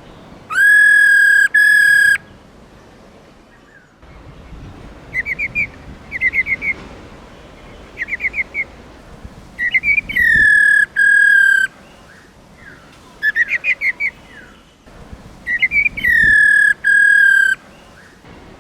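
Black-throated laughingthrush calling. Long, clear whistled notes come in three groups, about half a second, ten seconds and sixteen seconds in; each note rises at the start, then holds steady. Short quick runs of rapid chattering notes fall between them.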